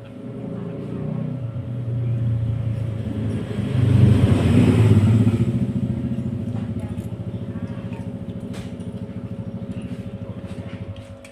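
A motor vehicle's engine passing by: it builds up over about four seconds, is loudest around four to five seconds in, then slowly fades away.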